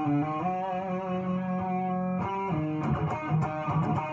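Electric guitar tuned to drop D, playing held notes that step in pitch for about two seconds, then a quick run of short, choppy picked notes.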